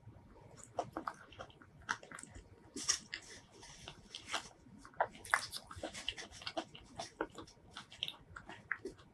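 Close-miked chewing of soft mini durian flesh: a bite at the start, then mouth chewing made of many short, irregular wet clicks and smacks.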